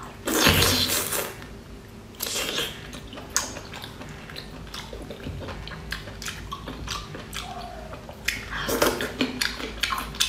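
Close-up wet mouth sounds of eating a whole cooked octopus: loud slurping about half a second in and again around two seconds, smacking and chewing clicks in between, and another run of slurps near the end.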